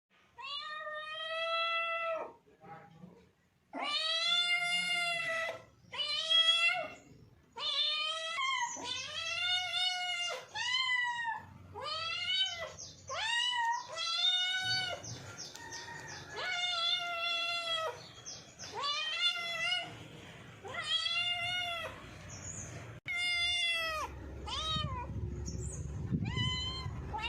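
Cats meowing over and over in a long run of separate calls, each rising then falling in pitch. A low rumbling noise comes in under the meows near the end.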